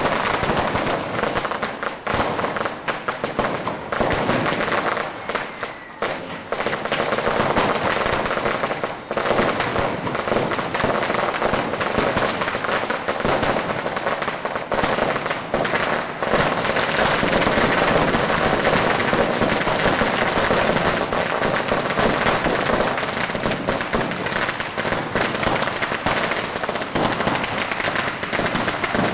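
Strings of firecrackers (Böllerketten) going off, a dense and continuous rapid crackle of bangs that thins briefly about five seconds in.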